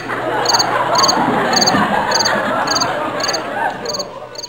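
A cricket chirping steadily, about two chirps a second, under a loud chorus of croaking frogs that sets in suddenly and slowly fades.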